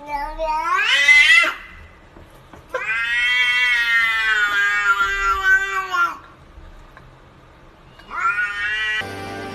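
A cat meowing in three long, drawn-out calls. The first rises in pitch at its end, the second lasts about three seconds, and the third is short.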